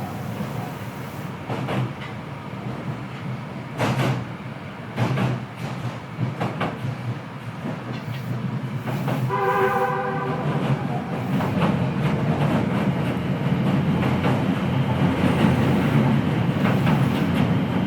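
Kita-Osaka Kyuko 9000 series electric train running, heard through the floor above its permanent-magnet synchronous traction motor. Wheels clack sharply over rail joints in the first half. About halfway a steady multi-pitched note sounds for about a second, then the low running rumble builds toward the end.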